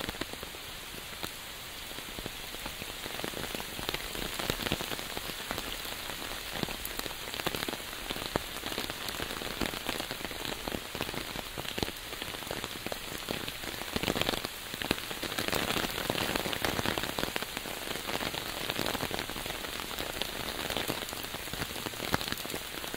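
Steady rain falling, with the hits of many separate drops heard through the wash of the downpour; it grows a little heavier for a few seconds past the middle.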